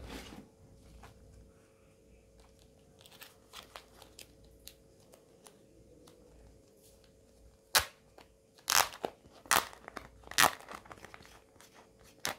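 Crinkling and tearing of a tablet's protective wrapper being handled and pulled open: small rustles at first, then a run of sharp crackles in the second half.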